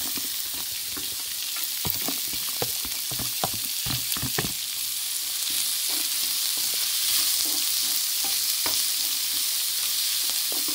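Diced onions sizzling in hot oil in a stainless steel frying pan, the sizzle jumping up as the onions go in. A wooden spatula stirring them clicks and scrapes against the pan, most often in the first few seconds.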